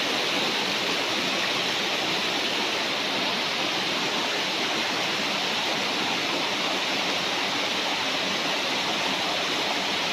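Steady rush of running water, an even hiss that never changes or pauses.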